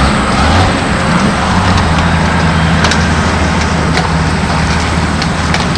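A steady low engine hum over wide rushing noise, with a small shift in pitch just after the start.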